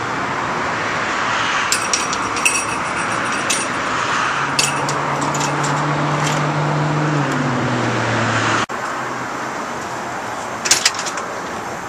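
Street traffic noise from passing cars, with a steady engine hum from a nearby vehicle that drops in pitch after a few seconds, and a few light clicks. The sound changes abruptly about nine seconds in to quieter traffic noise, with a brief clatter near the end.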